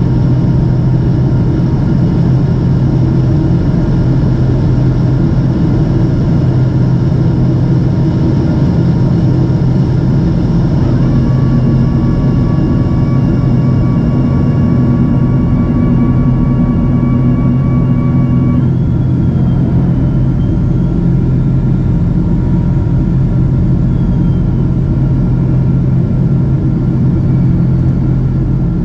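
Steady loud drone of a Boeing 777-200ER's twin Pratt & Whitney PW4000-series turbofans and airflow, heard from inside the cabin. A low hum holds throughout, and the engine tones shift to a new pitch about eleven seconds in and again around eighteen seconds, as with a thrust change.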